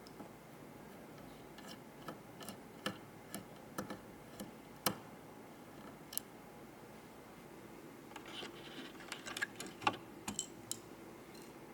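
Irregular small clicks and taps of computer hardware being handled and fitted during a PC assembly, with a short rubbing sound about eight seconds in.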